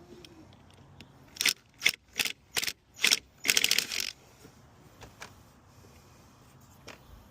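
Ratchet wrench clicking in about six short strokes, ending in a quick run of clicks, as a heater hose clamp is tightened to stop a coolant leak.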